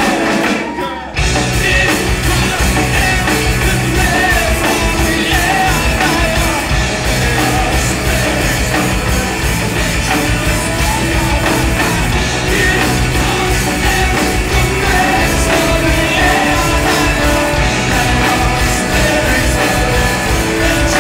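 Indie rock band playing live, with electric guitar and drums under a sung melody. The music thins out for a moment about a second in, then the full band comes back in.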